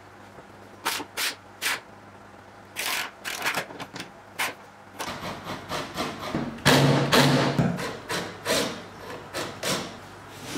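A few clicks of a ratchet wrench about a second in, then a cordless drill running in short bursts, driving screws up into the underside of a wooden workbench.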